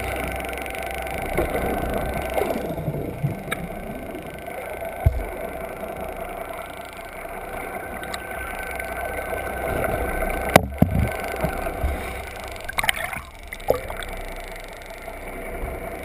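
Underwater recording of a boat's motor heard through the water: a steady drone with several held tones. A few sharp knocks break in about ten and a half and thirteen seconds in.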